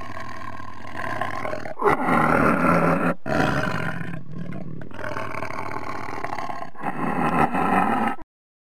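Tiger roaring repeatedly in a string of rough roars with short breaks between them, cutting off suddenly near the end.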